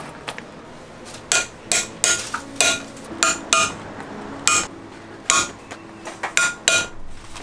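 Small hammer striking a steel setting punch on a metal anvil, setting metal lace hooks and D-ring eyelets into a leather boot upper. About a dozen sharp metallic taps come in irregular groups, each with a brief ring.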